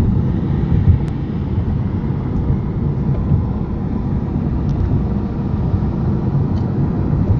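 A car driving at speed, heard from inside the cabin: a steady low rumble of road and engine noise.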